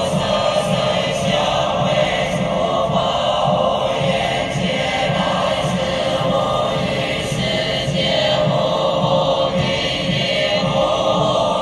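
A group of Buddhist nuns chanting in unison, a steady, sustained liturgical chant sung through microphones.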